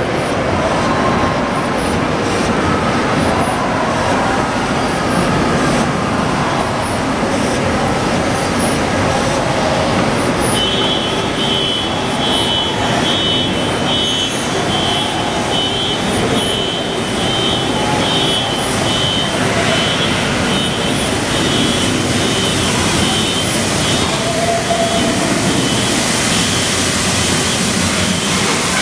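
Steam-hauled train running slowly into a station platform: a steady rolling rumble, with a high, wavering squeal of brakes starting about a third of the way in and fading before the end.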